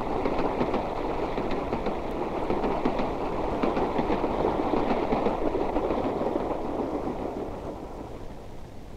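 Freight train of covered goods wagons rolling past on the tracks, its wheels clattering over the rail. The sound dies away over the last few seconds.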